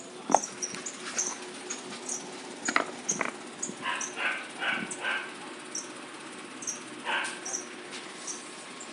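A small animal's short, high squeaks, repeated about twice a second, with a run of four whimpering calls in the middle and one more near the end. A few sharp knocks sound in the first three seconds.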